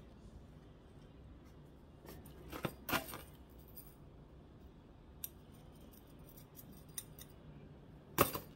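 Metal spoon scooping and tipping out small gravel: short gritty rattles and clinks of stones against the spoon, loudest about three seconds in and again near the end, with a couple of single light ticks between.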